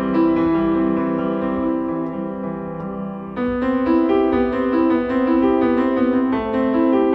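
Piano music laid over the video, playing held notes with a new, louder chord coming in about three and a half seconds in.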